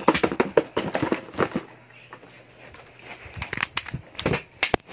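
Rubik's cube being turned quickly: rapid runs of sharp clicks and clacks, in two spells with a quieter gap between.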